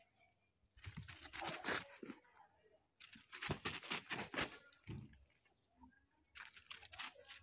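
Two Spanish mastiffs scuffling on dirt and gravel: two short bouts of paws scraping and crunching on the ground, about a second in and again around three and a half seconds in. The female is rebuffing the male's attempts to mount her because she is not yet receptive.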